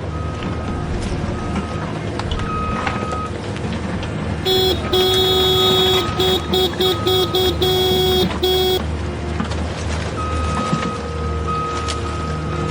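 Toy truck sound effects: a steady engine rumble with repeating reversing beeps. About four seconds in, a loud horn honks in a run of short toots for about four seconds.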